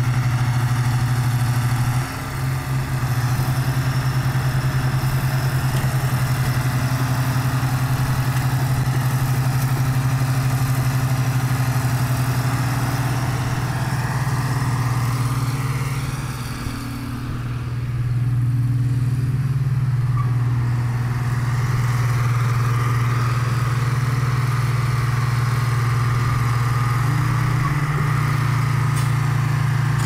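Crawler bulldozer's diesel engine running steadily under load close by, a constant low drone that dips briefly about two seconds in and again for a couple of seconds past the middle.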